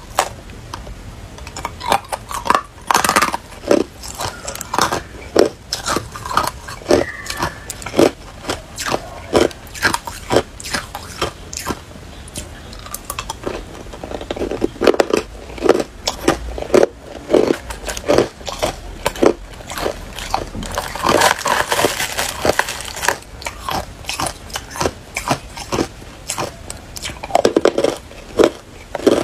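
Ice being bitten and chewed, a run of sharp cracking crunches, roughly one or two a second, with a denser spell of crunching about two-thirds of the way through.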